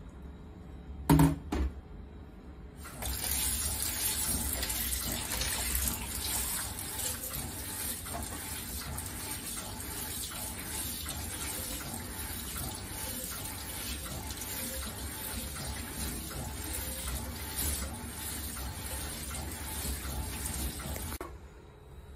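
A couple of sharp knocks of dishes about a second in, then a kitchen tap running onto a plate in a stainless-steel sink as dishes are rinsed, steady for most of the time and shut off suddenly near the end.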